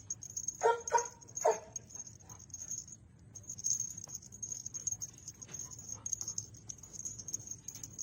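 A dog giving three short whining yelps about a second in, followed by faint light tapping and patter.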